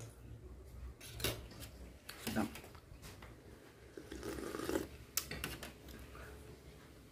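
A metal spoon clinking and scraping against a stainless steel tray, a few sharp clinks apart, with the mouth sounds of eating about four seconds in.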